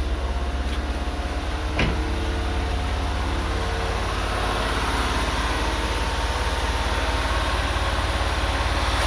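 2013 Nissan GX car engine idling steadily, now running after a crank-but-no-start fault, with the air conditioning on. A single short click about two seconds in.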